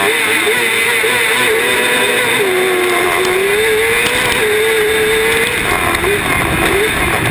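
Race car engine heard from inside the cockpit under hard driving, its note repeatedly rising and falling, with a longer dip to a lower pitch in the middle before it climbs again, over loud road and chassis noise.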